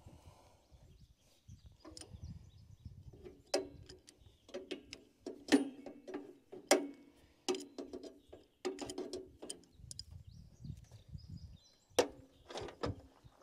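Hand tools clicking and clanking against metal hydraulic fittings while a binding hydraulic hose is taken off to be swapped. The sharp strikes come irregularly, some in quick runs, each with a short metallic ring.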